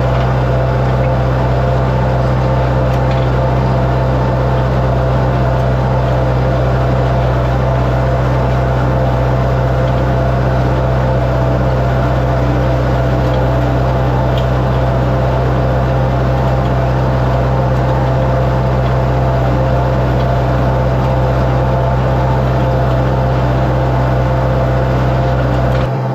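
International 474 tractor engine running at a steady working speed while pulling a hay tedder, a constant loud hum with no change in pitch.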